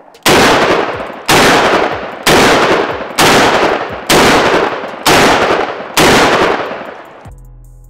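Seven .500 S&W Magnum revolver shots about a second apart, each a loud blast trailing off into a long echo. Background music comes in near the end.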